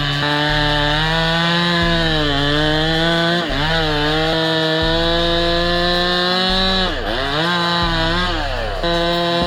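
Chainsaw running at high revs, its pitch dipping sharply and recovering several times as it bogs down under load cutting into wood.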